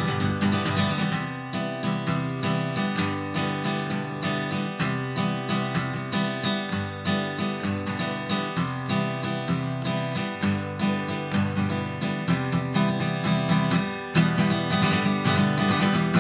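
Acoustic guitar playing an instrumental passage alone, picked and strummed in a steady rhythm. It gets louder near the end.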